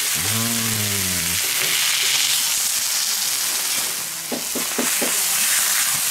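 Beef hanging tender steaks sizzling on a hot steel fire plate, a steady frying hiss. Around four seconds in, the metal tongs click a few times as a steak is turned.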